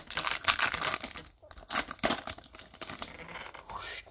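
Wrapper of a baseball card pack crinkling and tearing as it is opened, in irregular crackles with a brief pause about a second and a half in.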